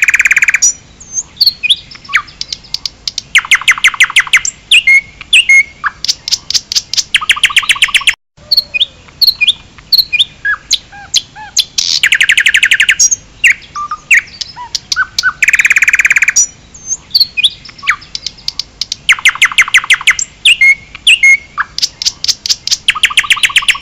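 Songbird singing: fast trills about a second long alternate with short whistled notes and chirps, in a phrase that repeats, with a brief break about eight seconds in.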